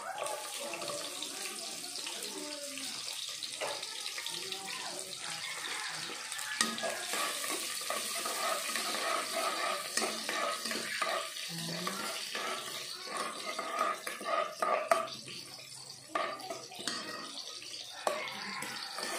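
Chopped onion and garlic sizzling in hot oil in a metal pot, with a metal ladle stirring and knocking against the pot now and then.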